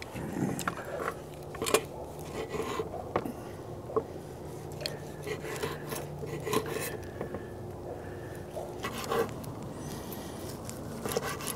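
Long stainless-steel carving knife sawing through grilled pork and scraping and tapping on a wooden cutting board, in irregular short strokes and clicks. A steady low hum runs underneath.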